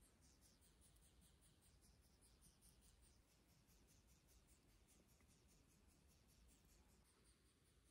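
Near silence: room tone, with faint high-pitched ticks repeating several times a second.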